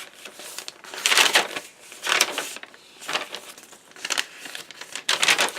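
Paper pages of a handmade junk journal being turned and handled, rustling several times in separate short bursts.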